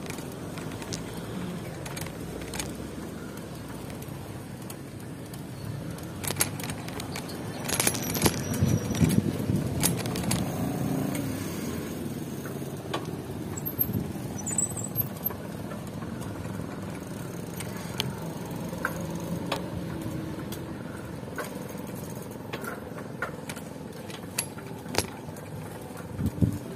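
Motor vehicle and road noise, with scattered clicks and rattles. It is loudest about eight to eleven seconds in, as if a vehicle passes close by.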